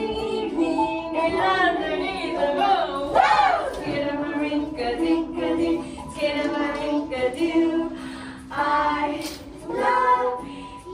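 Children's voices singing an action song together in unison, with sung notes changing and held throughout.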